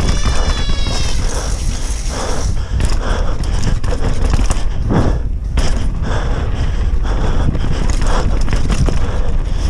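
Downhill mountain bike ridden fast over dirt: wind buffeting the camera microphone, tyres rumbling on loose soil, and the chain and frame rattling with knocks as it lands jumps, the heaviest about halfway through. A brief high-pitched wavering sound comes right at the start.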